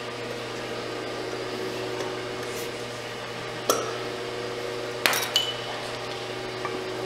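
Metal parts of a Shimpo RK-2 pottery wheel's shaft and bearing housing clinking as they are handled by hand while the bottom bearing is removed. A sharp clink comes about halfway through, then two more about a second later, the last ringing briefly, over a steady hum.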